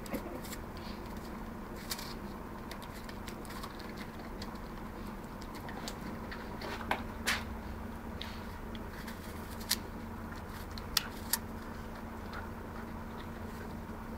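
Labradors biting chunks off a hand-held apple: scattered sharp crunches and clicks of teeth on the apple, several close together in the second half, over a steady faint hum.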